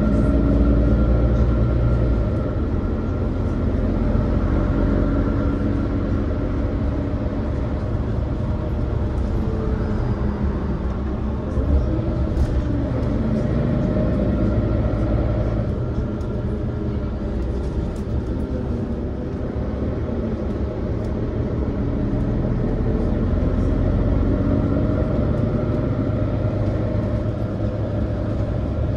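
Mercedes-Benz Citaro city bus in motion: steady engine and road rumble, with drivetrain tones rising and falling as the bus changes speed.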